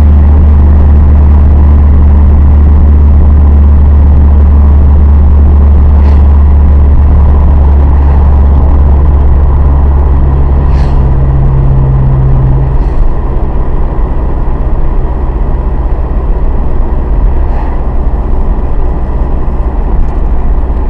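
Honda Civic Type R FD2's four-cylinder engine idling, heard at the exhaust with a hiss mixed into the steady low note. About thirteen seconds in the low note eases and the sound gets a little quieter, with a few faint ticks scattered through.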